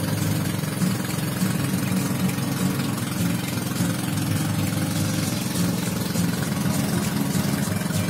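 Engine of a motorized outrigger boat running steadily under way, a low even drone, with water rushing past the hull and outrigger.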